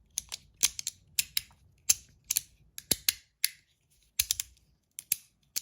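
Flat Verk magnetic fidget clicking as its pieces are worked and snap together on their magnets: a run of crisp, sharp clicks at an uneven pace, often in quick pairs.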